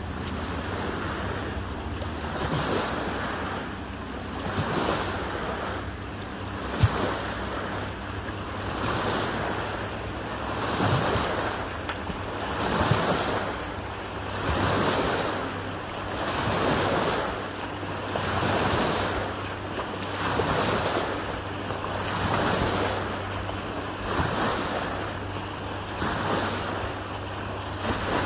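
Water washing and lapping in regular swells about every two seconds, over the steady low hum of a stand-up jet ski's engine running. One brief sharp knock about seven seconds in.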